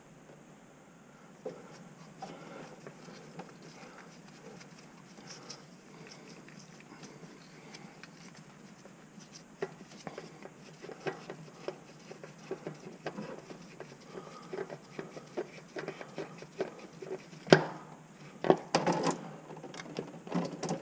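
Oil filter on a 5.7 L Hemi being worked off by hand from underneath: faint scattered clicks, taps and rubbing that grow busier, with a few louder knocks near the end.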